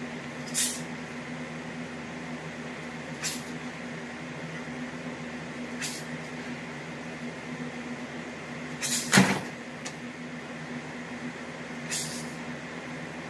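A person throwing push kicks: a short swish of the leg and sweatpants with each kick, five in all about every three seconds. The loudest, a little past the middle, has a thud in it. A steady low hum runs underneath.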